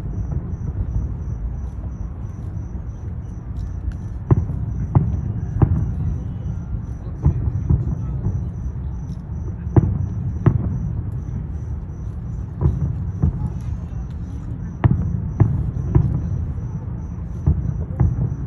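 Fireworks going off in a show: sharp bangs at irregular intervals, each with a short echoing tail, over a constant low rumble.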